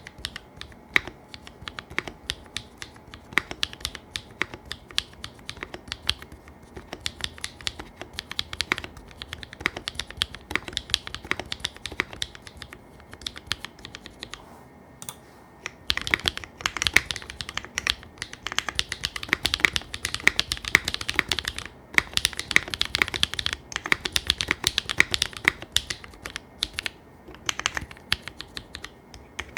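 Neo60 Core mechanical keyboard with tactile brown switches, built with no plate and no foam on a hot-swap PCB, being typed on: a steady stream of key clacks. A short lull about halfway through, then faster, louder typing that thins out near the end.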